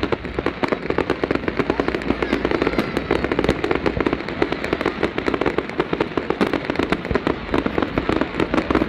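Fireworks display going off: a dense, unbroken rattle of cracks and pops, many each second.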